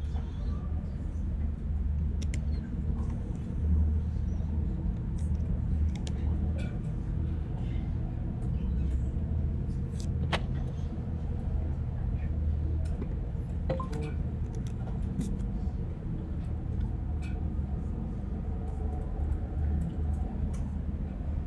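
Room tone: a steady low rumble with scattered faint clicks and taps.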